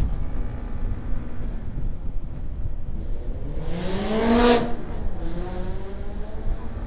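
Motorcycle engine running under way with steady wind rumble on the microphone. About three and a half seconds in, an engine revs up sharply for about a second and then drops back.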